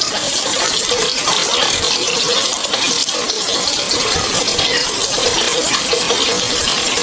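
Water running in a steady flow, like water pouring from a pipe or tap, with an even splashing rush.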